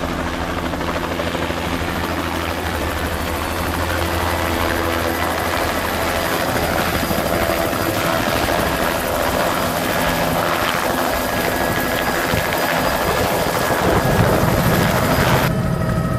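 Bell JetRanger helicopter hovering close by, its turbine engine and rotor running steadily and growing louder. Near the end it switches suddenly to a steadier, more even hum, as heard from inside the cabin.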